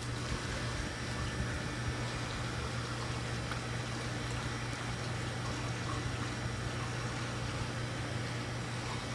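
Water pouring into a live bait tank over a steady low pump hum.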